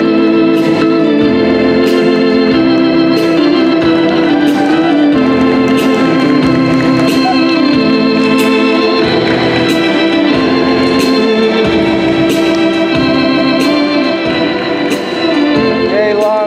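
Organ music playing a foxtrot, with sustained chords and a steady beat of about one and a half beats a second.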